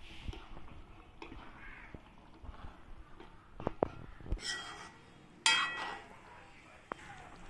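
Steel spoon clinking and scraping against a pan while field beans are stirred into a thick gravy. A crow caws twice in the second half; the second caw is the loudest sound.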